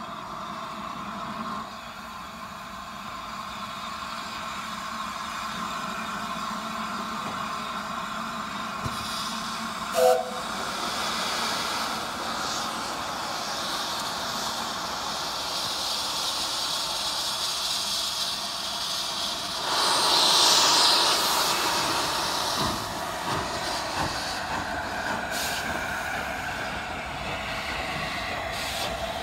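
LNER A4 Pacific steam locomotive 60009 Union of South Africa moving off with its cylinder drain cocks open, hissing steadily. A short whistle toot comes about ten seconds in, and a louder gush of steam about twenty seconds in.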